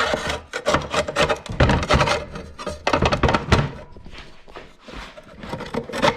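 Knocks, clicks and scraping of a diamond tile blade being worked by hand onto the arbor of a Festool TS75 track saw, a tight fit in the blade housing. The knocks are irregular and come thickest in the first half.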